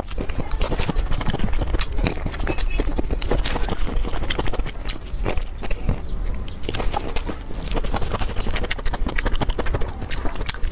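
Close-miked eating sounds: rapid chewing with many quick, irregular wet clicks and smacks, without a break.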